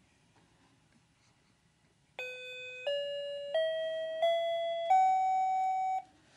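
An electronic chime plays five steady notes climbing a major scale, starting about two seconds in, each held under a second and the last a little longer.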